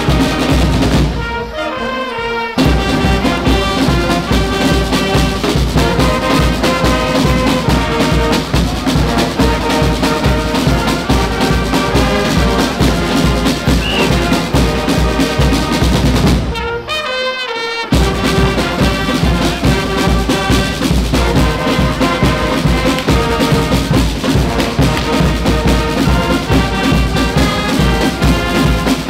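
Brass band playing live: trumpets and trombones over a steady beat from marching bass and snare drums. The music drops away briefly twice, about a second in and again about two-thirds through.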